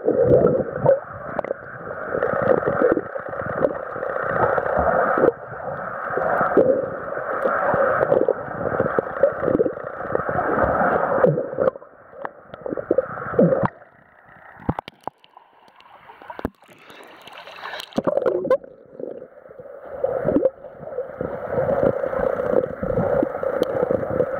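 Muffled water sloshing and gurgling heard from a camera underwater, with the repeated strokes of a dog paddling just above it. The water noise drops off for a few seconds past the middle, then picks up again.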